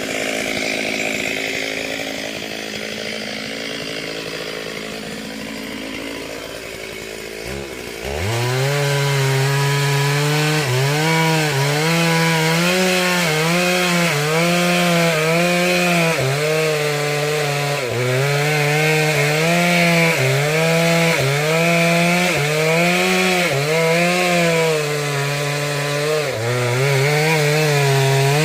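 Chainsaw engine running at lower revs, then about eight seconds in opening up to full throttle and cutting. Its pitch dips and recovers every second or so as the chain bites into the wood.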